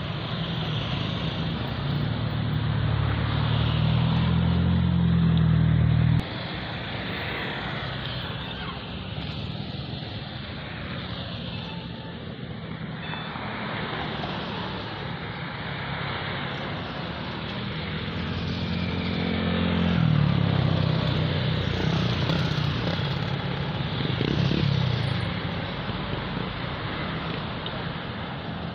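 Road traffic passing close by: a steady wash of tyre and engine noise, with engine hum swelling as vehicles go past. The first pass cuts off abruptly about six seconds in, and louder passes come again in the second half.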